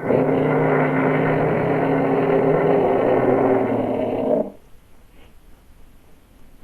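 T-rex roar sound effect: one long roar with a steady low pitch, lasting about four and a half seconds and cutting off suddenly.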